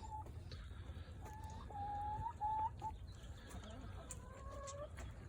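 Chickens making soft, drawn-out calls: three short ones in the first half, then a longer call near the end.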